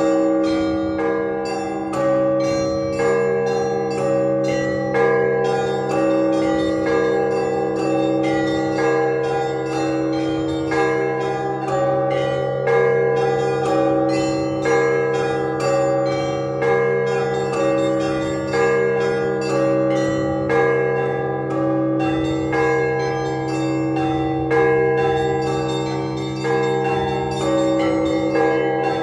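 Russian Orthodox church bells rung by hand in a festive peal (zvon). The big bell is struck about once a second, its deep tone hanging on, over a fast, repeating pattern of smaller chiming bells.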